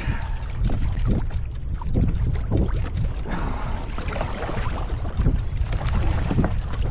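Wind buffeting the microphone, with water splashing and scattered knocks against a fishing kayak's hull.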